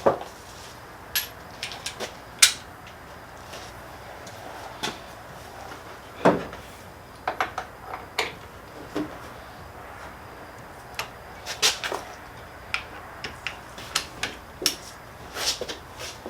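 Irregular clicks, clinks and knocks of hand tools and metal engine parts being handled during engine work on the timing end, with the sharpest knocks about two and a half seconds in and about six seconds in.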